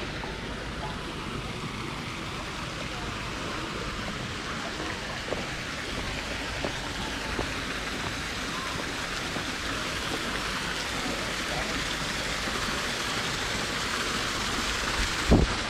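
Steady rushing of flowing water, growing a little louder in the second half, with a short low bump near the end.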